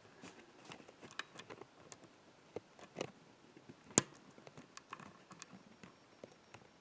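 Faint metallic clicks and light scraping from a pick and tension wrenches working the pins of a Yardeni dimple lock cylinder, with one sharper click about four seconds in.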